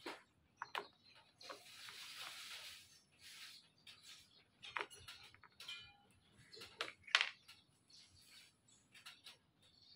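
Hard plastic licence-plate holder handled against a scooter's plastic rear fender: scattered clicks and knocks, a scraping rush about two seconds in, and a short squeak about halfway through.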